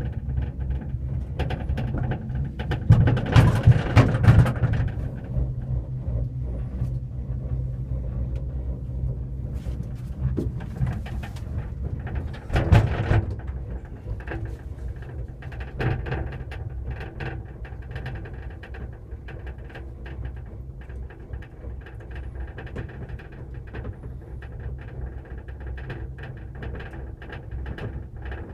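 Steady low rumble of a gondola cableway cabin running along its haul rope. There is a louder rattling rumble about three seconds in as the cabin passes a support tower, and a shorter jolt near thirteen seconds.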